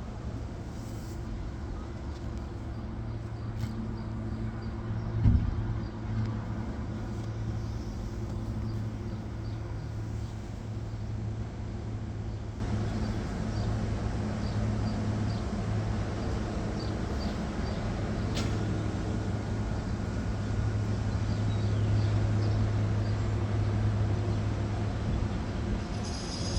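Steady low hum of a vehicle in motion, like road and engine noise, with a single knock about five seconds in.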